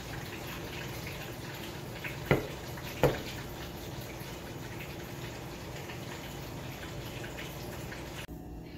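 Two sharp knocks a little under a second apart, about two seconds in, as a plate is handled on a tabletop, over a steady background hiss.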